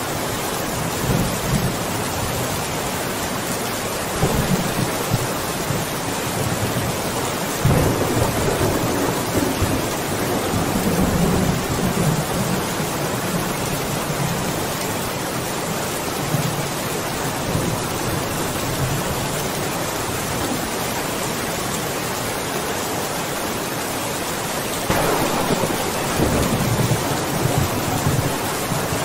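Steady rain falling, with low rolls of thunder: one about four seconds in, a louder, longer one from about eight seconds in, and another near the end.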